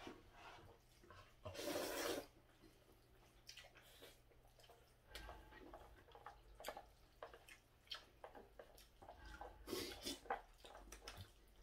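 Jjajangmyeon noodles slurped and chewed: a loud slurp about two seconds in and another loud wet burst near the end, with quieter chewing and small clicks of chopsticks in a plastic bowl between.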